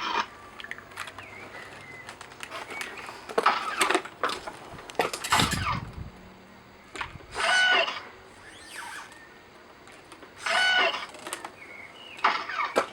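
Motorized Iron Man Mark VI replica suit playing its effects: a series of short mechanical whirs and electronic tones, two of them nearly alike about three seconds apart.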